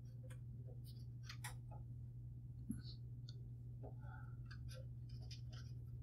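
Cotton swab scrubbing inside the empty pushbutton-switch slot of a DeltaLab Super Time Line delay: faint scratchy rubbing and small clicks, with one soft knock a little under three seconds in, over a steady low hum.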